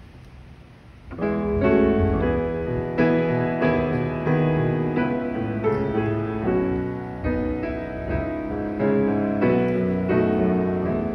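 Piano music starts about a second in: a slow sequence of chords and melody notes, each struck and then fading.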